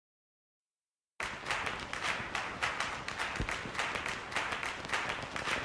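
Silence for about a second, then a crowd clapping and applauding steadily at a moderate level.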